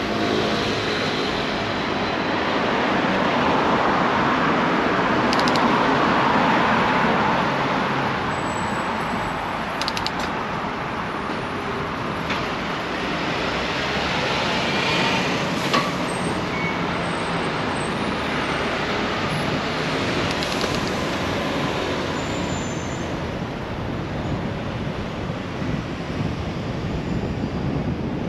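City road traffic heard from a moving bicycle: a steady rush of engines and tyres that swells loudest about five seconds in.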